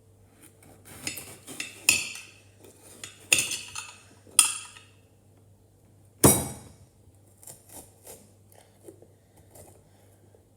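Kitchen knife cutting a bell pepper on a ceramic plate, the blade knocking and clinking against the plate in a handful of sharp strikes, the loudest about six seconds in.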